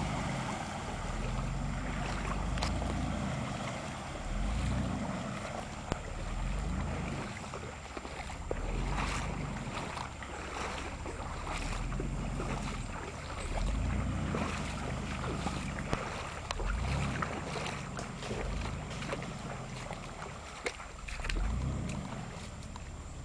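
A vehicle's engine revving in repeated surges every few seconds as it pushes through creek water, with water splashing and wind on the microphone.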